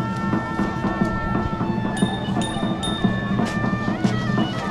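Music: held, bell-like notes that change pitch in steps near the end, over a pulsing percussion beat.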